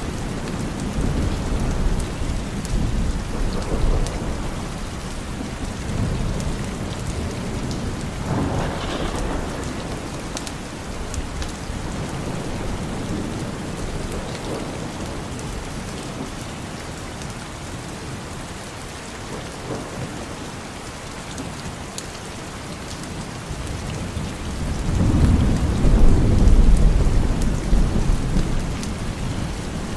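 Steady rain falling, with thunder rolling in the distance. A short rumble comes about nine seconds in, and a longer, louder roll builds near the end.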